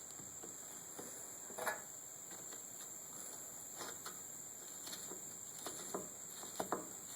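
Faint, scattered small clicks and taps as the nuts are put back onto the chainsaw's guide-bar studs by hand, over a steady faint hiss; a few of the clicks come close together near the end.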